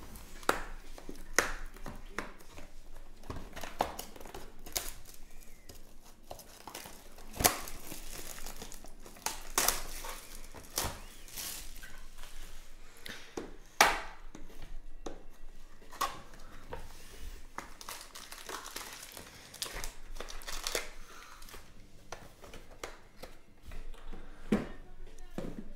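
Trading-card hobby box being opened by hand and its foil-wrapped packs pulled out. Cardboard and foil crinkle and tear, with scattered sharp clicks and taps.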